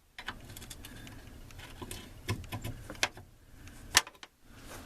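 Scattered sharp metallic clicks and clinks of hand tools working on a truck door's hinge bolts, with the loudest knock about four seconds in.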